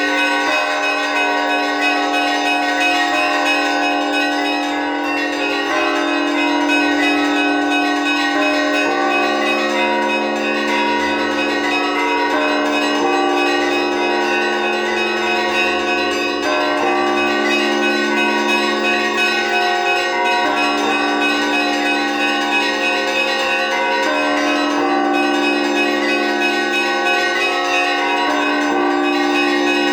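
Orthodox church bells of Kharkiv's Annunciation Cathedral rung by hand in an improvised peal, many bells sounding at once in a continuous, dense ringing. A deeper bell joins about nine seconds in and keeps sounding every few seconds under the smaller bells.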